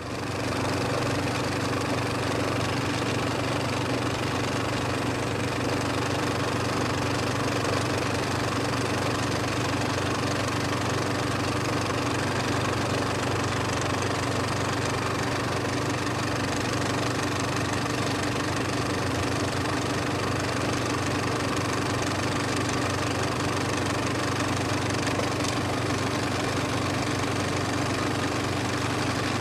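Bus engine running steadily, heard from inside the passenger cabin: a constant low hum with steady tones that holds the same level throughout.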